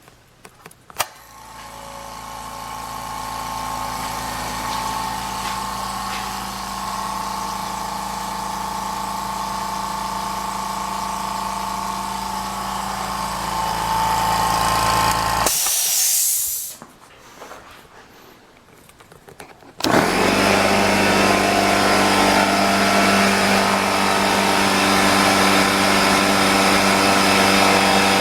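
Electric air compressor starting after a click about a second in and running steadily, cut off by a brief loud hiss of air just past halfway. About two-thirds of the way in, a louder steady run starts.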